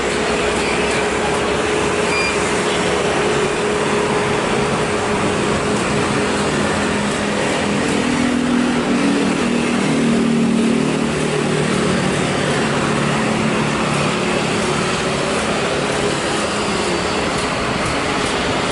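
Steady loud roar of road traffic and airport background, with a constant hum. A motor vehicle's engine passes close from about halfway through.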